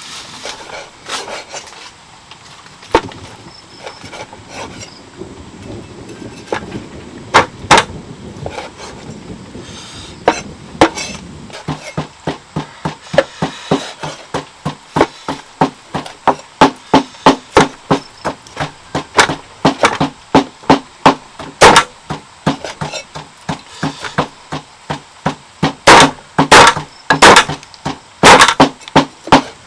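Rhythmic blows on wood, sparse at first, then a steady knocking of about two a second from about halfway in, with the loudest strokes near the end.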